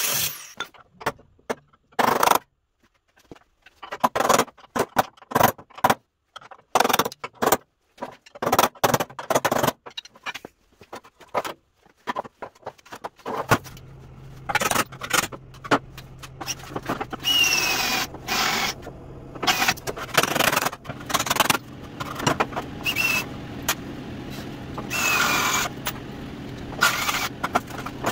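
Sharp clanks and knocks of rusty sheet-steel tailgate panels being handled and struck. About halfway through a steady hum sets in, and a cordless power tool whirs in short bursts against the steel with a few brief squeals, cutting the tailgate's top outer section loose.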